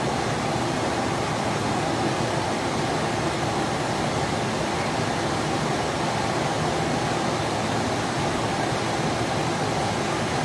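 Steady jet aircraft noise in flight, an even rush of engine and airflow that holds constant throughout.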